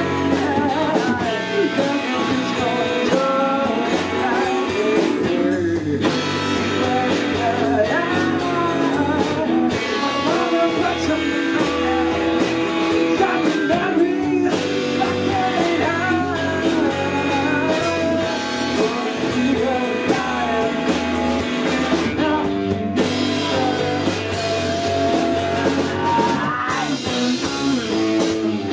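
Live rock band playing a song: electric guitar and drum kit, with a singing voice over them.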